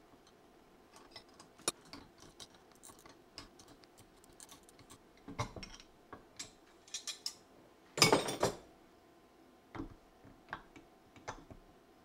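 Steel parts and a wrench clicking and clinking as the surface grinder's vertical-feed housing is fitted and its feed-screw nut tightened by hand, with a louder metal clatter about eight seconds in.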